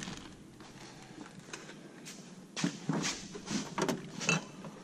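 Near-quiet room, then about halfway in a run of short knocks and clatters as a refrigerator door is pulled open and the bottles on its door shelves rattle.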